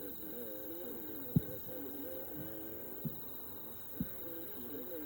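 Three dull, low booms of distant aerial firework shells bursting: a loud one about a second and a half in, then two weaker ones close together near the end. Beneath them runs a low, wavering hum.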